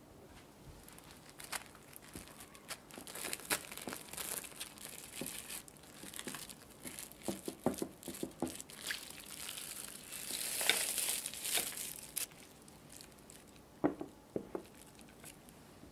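Plastic cling film crinkling and rustling as it is handled and pressed down by hand onto pastry cream in a glass dish, loudest a little past the middle. A few sharp knocks near the end.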